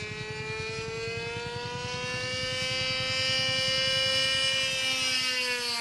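Engine of a 40-size World Models P-51 Mustang RC model airplane, a small two-stroke glow engine, buzzing steadily on a flyby. It grows louder and rises slightly in pitch until about four seconds in, then drops in pitch as the plane passes.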